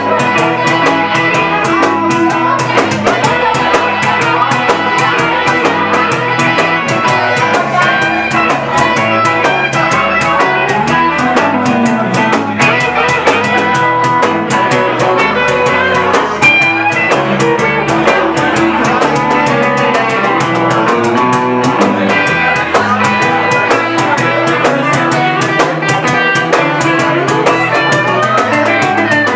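Live rock band playing, with guitar over a drum kit keeping a steady beat.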